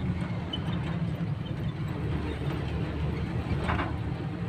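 Steady low engine rumble of a jeepney, heard from inside its passenger cabin.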